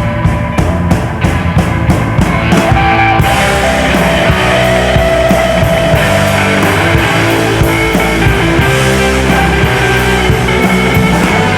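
Studio rock recording with a drum kit keeping a steady beat. The sound thickens and gets a little louder about three seconds in as the fuller band arrangement comes in.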